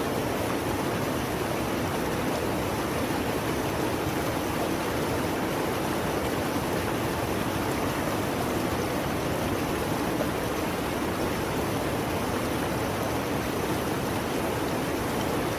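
Mountain river rushing in a steady, unbroken roar of water.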